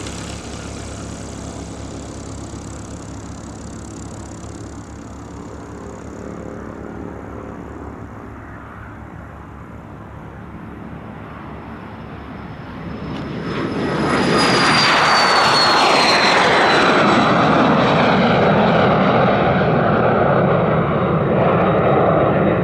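HondaJet's twin turbofan engines, heard at a moderate level at first and then growing much louder about 13 seconds in as the jet passes close. A high whine falls in pitch as it goes by.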